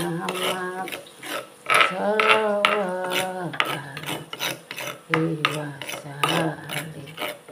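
Stone pestle grinding and scraping spice paste against a flat stone mortar in a quick run of gritty strokes. A low, voice-like hum comes and goes several times over the grinding.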